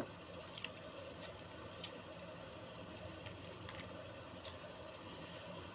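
Refrigerator running with a faint steady hum, with a few light ticks and clinks scattered through it.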